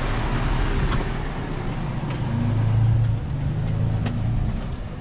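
Off-road 4x4's engine running steadily in a low gear, swelling a little about halfway through, over a constant background rush.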